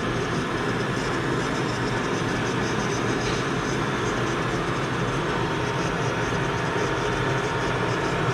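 Electrovert Electra 500F wave solder machine running, with a steady mechanical noise from its fans and drives and a faint steady tone.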